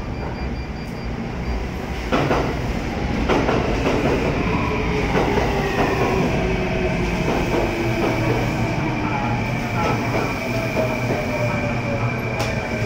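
Kintetsu 80000 series 'Hinotori' electric limited express pulling away from the platform and gathering speed: it gets louder about two seconds in, with knocks and clacks from the wheels and couplings and a high electric motor whine that slowly rises in pitch as the train accelerates.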